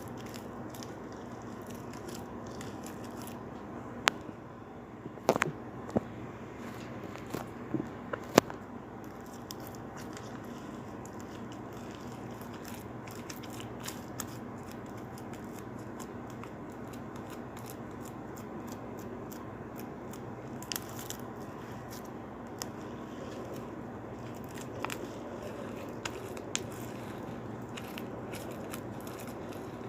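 Sticky homemade slime being kneaded by hand in a bowl after more activator is worked in: scattered sharp clicks and pops over a steady low background hum, the pops thickest in the first several seconds.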